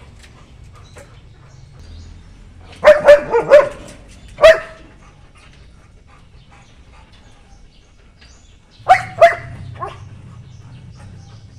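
A dog barking in short bursts: four quick barks about three seconds in, a single bark a second later, and three more near the end.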